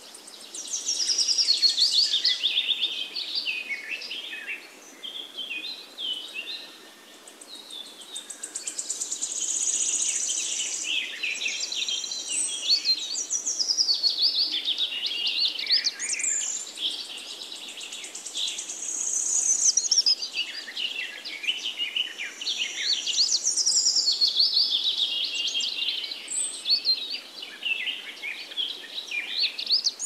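Birds chirping and singing, many quick high calls overlapping almost without a break.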